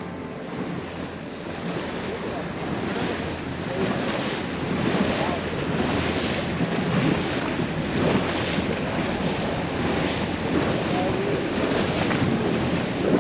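Wind buffeting the microphone and waves splashing against the hull of a small open boat moving over choppy sea, growing louder over the first few seconds.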